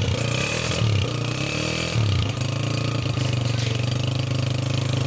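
Honda CG125's single-cylinder four-stroke engine running, revved up and down a few times before settling into a steady idle about two seconds in.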